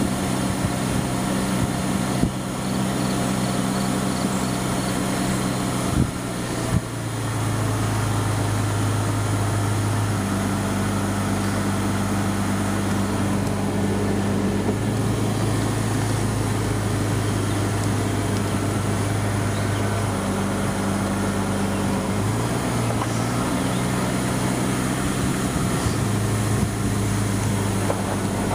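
Car engine and road noise heard from inside the cabin while driving, a steady low hum that shifts in pitch a few times. A few short knocks about 2 seconds and 6 to 7 seconds in.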